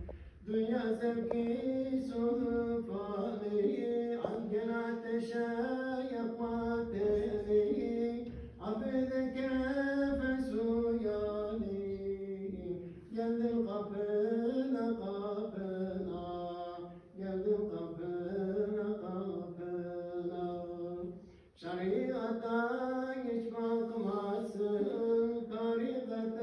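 Unaccompanied male chanting of an ilahi, a Turkish Islamic devotional hymn, sung in melodic phrases of a few seconds with short pauses for breath between them.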